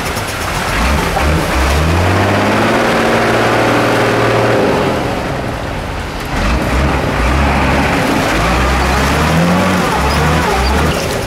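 Off-road truck's diesel engine revving hard under load, its pitch climbing for a couple of seconds, easing off about five seconds in, then pulling again.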